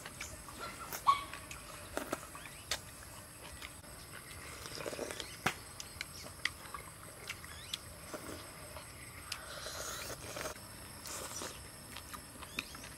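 Close eating sounds of noodle soup: slurping and wet chewing, with irregular sharp clicks of wooden chopsticks against the bowls, the loudest click about a second in.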